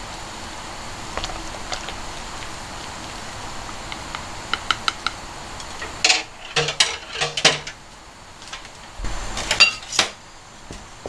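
A utensil clinking and knocking against a mixing bowl while batter is stirred, with a run of louder kitchenware clatters just past halfway.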